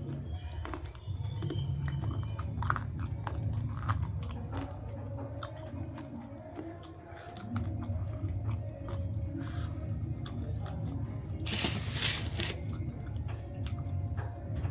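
A person eating close to the microphone: chewing with many small clicks and smacks. About twelve seconds in there is a louder burst of noise lasting about a second.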